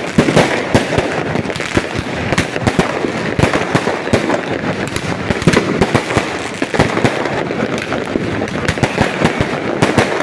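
Fireworks going off without pause: many sharp bangs in rapid, overlapping succession.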